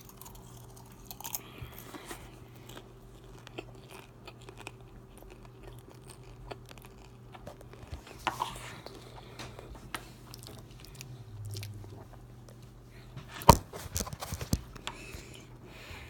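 Someone chewing and crunching popcorn, with scattered small crunches and a few louder sharp clicks near the end, over a faint steady low hum.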